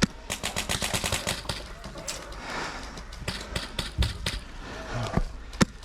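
Airsoft gunfire: a rapid string of shots, about ten a second, for the first second and a half, then a few scattered single shots.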